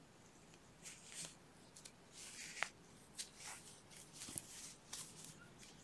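Faint rustling of yarn and a crochet hook being worked through stitches, in scattered soft strokes with a couple of small clicks.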